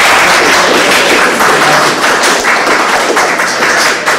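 A small crowd applauding, a dense patter of many hands clapping together.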